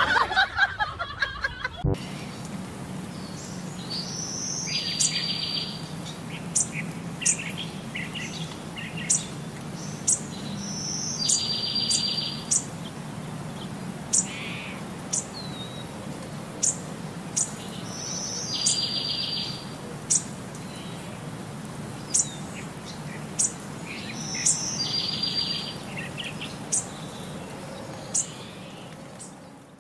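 Bird chirps: short, sharp, high chirps, with a longer buzzy call that comes back about every six to seven seconds, four times in the same pattern, over a steady low hum.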